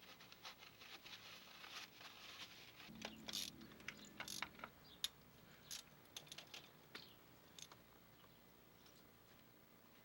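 Faint, scattered clicks and light scrapes, mostly in the first two-thirds, then near silence.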